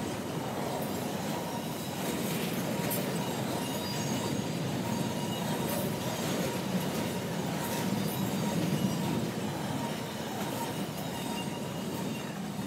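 Double-stack container well cars of a freight train rolling past, their steel wheels making a steady rumble on the rails. A faint thin wheel squeal and scattered light clicks run through it.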